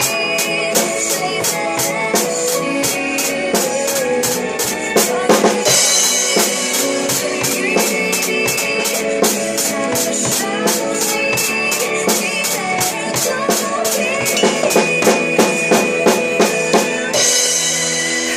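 Drum kit played over a pop song's backing track in an instrumental passage: a steady run of sharp cymbal strokes with bass drum and snare rimshots, and clusters of heavier hits around five seconds in and again near the end.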